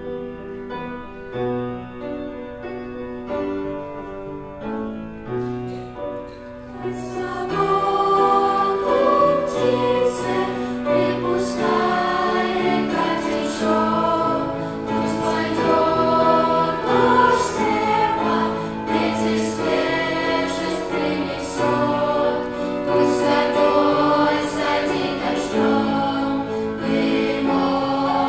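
A piano introduction plays for about seven seconds, then a children's and youth choir comes in, singing a Russian-language worship song over the accompaniment, louder and fuller once the voices enter.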